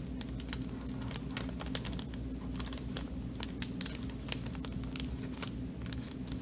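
Irregular light ticks and crinkles of a paper lunch bag and markers being handled, over a steady low hum.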